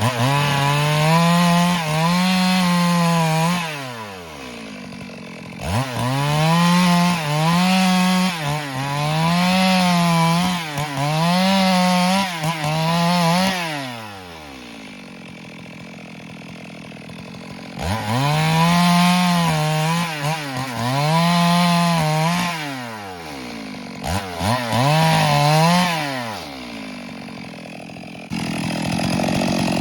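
Stihl MS382 two-stroke chainsaw revving to full throttle in four cuts through wood, its pitch wavering up and down as the chain bites, and dropping back to idle between cuts.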